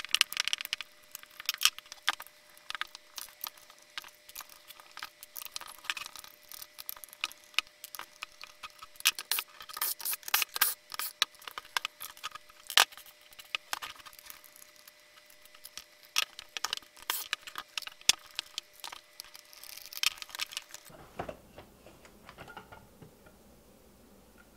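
Screws being backed out of the plastic housing of a Ryobi P310G cordless caulking gun with a hand screwdriver, and the loose screws and plastic parts set down on a wooden bench: quick, irregular small clicks and taps. They stop about three seconds before the end.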